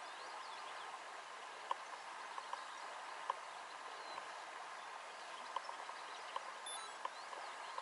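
Faint river ambience: a steady rush of flowing water, broken by scattered sharp ticks about once a second or so, with a few thin bird chirps high above.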